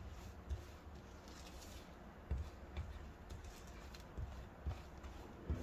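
A basting brush stirring ground spices around a plastic plate: faint scraping with a few soft, irregular knocks as it touches the plate.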